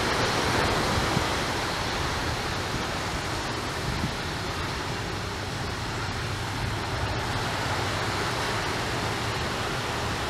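Steady rushing noise of an Airbus A330-300's Rolls-Royce Trent 700 jet engines at low power on the runway, mixed with wind noise on the microphone.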